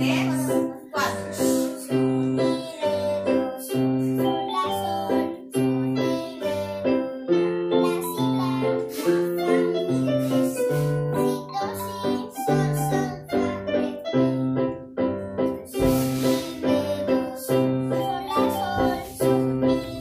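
Electronic keyboards playing a simple tune together, with low bass notes repeating on a steady beat.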